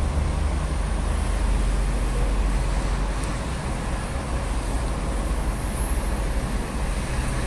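Steady outdoor street noise from road traffic: a continuous low rumble under an even hiss, with no single vehicle standing out.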